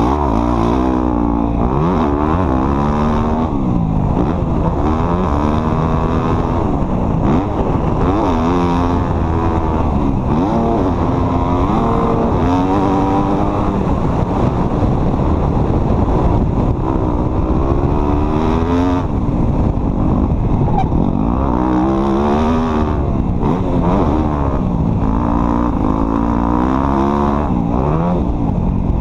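A vehicle's engine being driven off-road, its pitch rising and falling again and again as the throttle is opened and eased every few seconds.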